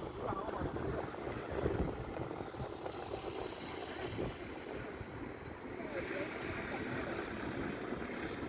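Strong wind buffeting the microphone over the steady rumble of a jet airliner, with a higher hiss joining about six seconds in.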